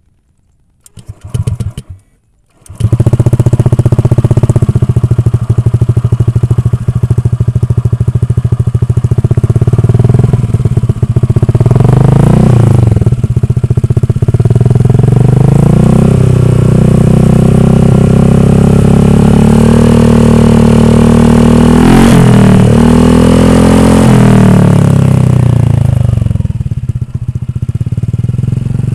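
Honda Vario 150 scooter's single-cylinder engine breathing through an aftermarket stainless Akrapovic-replica slip-on muffler. After a brief first burst, it starts about three seconds in and idles. It is then revved: a short rise and fall around twelve seconds, then a long hold at higher revs with a quick blip in the middle, before dropping back to idle near the end.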